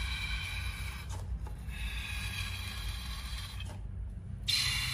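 Slime and air forced out through the snipped neck of a hand-squeezed rubber balloon, making a thin pitched squeal in two long stretches broken about a second in. A louder hiss starts near the end.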